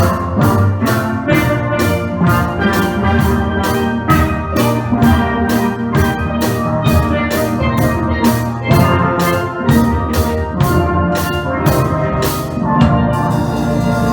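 Steel pan band playing, with a steady beat of sharp percussion strokes about two to three a second. The beat stops near the end while the pans hold a ringing chord.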